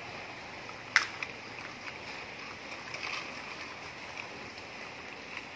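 Small plastic toys being handled: a sharp click about a second in and a few fainter taps, over a steady background hiss.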